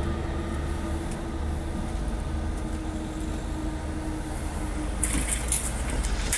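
A steady low rumble, with a faint hum that dies away about four seconds in as the departing Class 158 diesel multiple unit recedes. About five seconds in, road vehicles start over the level crossing, adding tyre hiss and sharp clicks.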